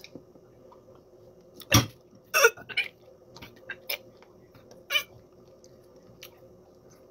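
A woman gagging after swallowing a raw egg: a string of short, irregular choking noises, the loudest about two seconds in.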